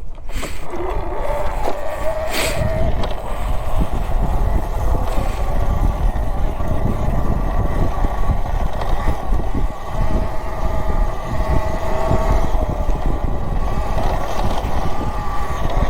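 Talaria Sting electric dirt bike under way: the motor, driven by a Green Line Engineering BAC4000 controller, gives a steady whine that wavers slightly in pitch with the throttle, over a constant low rumble.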